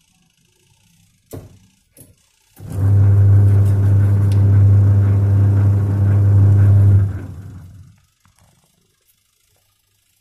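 Wash motor of a Godrej semi-automatic washing machine starting after two light clicks, then running with a steady strong low hum as it turns the drive through the freshly refitted belt, running smoothly. About four seconds later it cuts out and winds down over about a second.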